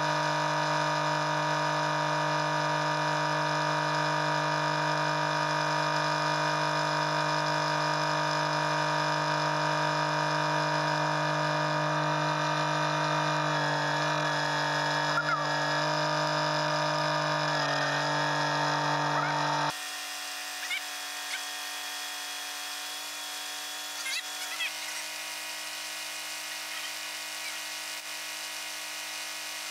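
Kubota compact tractor's diesel engine running steadily at a constant speed. About twenty seconds in it drops away sharply, leaving a much quieter background with a few faint knocks and scrapes.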